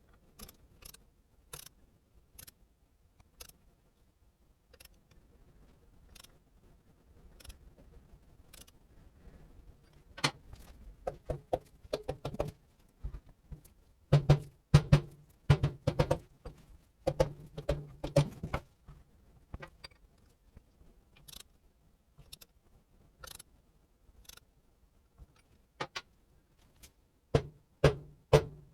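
Metal tools clinking and knocking against Kawasaki KM90 engine parts: a run of sharp separate clicks, turning into a cluster of louder, ringing metallic knocks about halfway through and again near the end.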